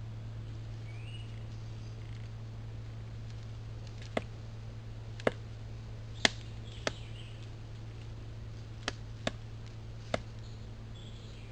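Pileated woodpecker pecking at a tree: seven single, sharp, irregularly spaced blows in the second half, over a steady low hum.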